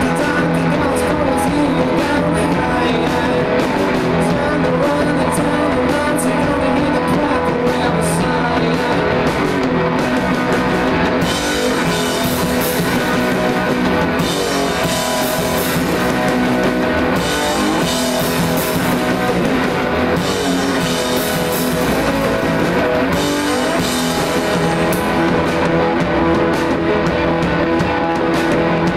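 Live rock band playing loudly: distorted electric guitar over a drum kit, with the cymbals crashing in several stretches through the middle.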